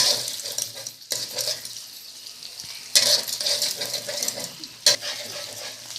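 Eggs sizzling in hot oil in a karahi, with a spatula scraping and stirring them against the pan in three short strokes about two seconds apart.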